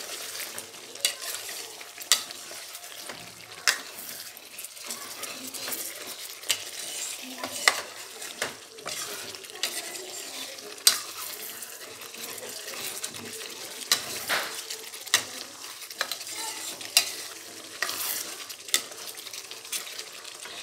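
Chicken karahi masala sizzling as it fries in a metal karahi, stirred with a spatula that knocks and scrapes against the pan in sharp, irregular clicks about once a second. This is the bhunai stage: the masala frying down until the oil separates.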